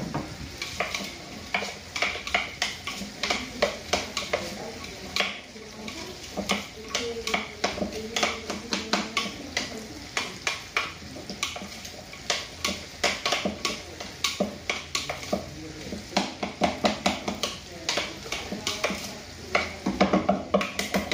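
Metal spoon stirring sliced onions in marinade in a glass bowl: quick, repeated clinks and scrapes of the spoon against the glass.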